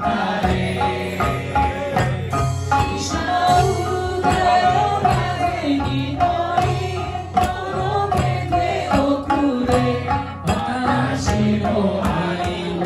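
Live Okinawan folk music: singing accompanied by a sanshin, the plucked three-stringed Okinawan lute, with taiko drums struck in a steady rhythm.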